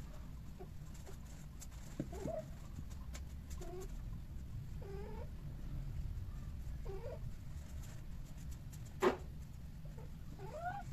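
A cat giving short, low bending yowls every second or two while a pair of Persian-type cats mate. One sharp click comes about nine seconds in, over a steady low hum.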